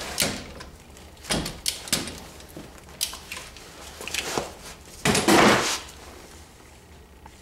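Hand tools, a wrench and a socket, being handled and set down on a concrete floor: a series of sharp clanks and knocks, the loudest a longer clatter about five seconds in.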